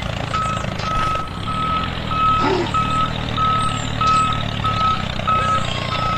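Vehicle reversing alarm beeping: one steady tone repeated about three times every two seconds, over a low steady motor hum.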